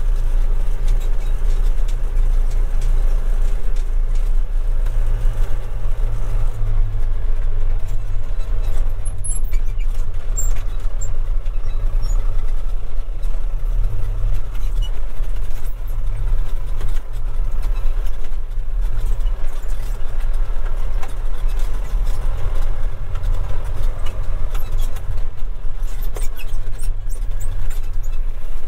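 John Deere 6200 tractor's 3.9-litre four-cylinder diesel engine running steadily while the tractor drives along, heard from inside the cab, with a deep low rumble that swells and eases slightly.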